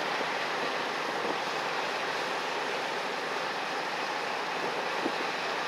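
Steady wind and water noise, with one faint knock near the end.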